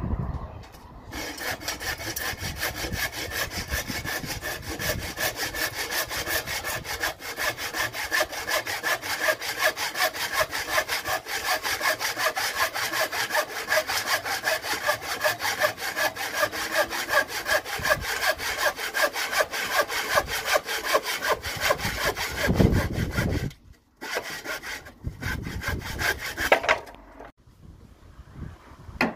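Hand saw cutting through a timber board, with fast, even back-and-forth strokes. It stops briefly near the end, then a few more strokes finish the cut.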